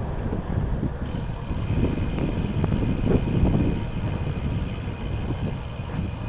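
Wind rumbling over the microphone of a cyclist riding along a road, with a thin high hiss coming in about a second in.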